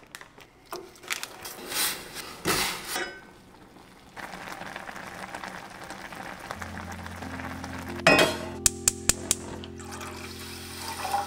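Plastic instant-ramen packets crinkling in the hand, then a steady watery hiss of noodles boiling and water being poured into a metal saucepan. There is a sharp metal clatter of pots about eight seconds in. Soft music with held chords comes in midway.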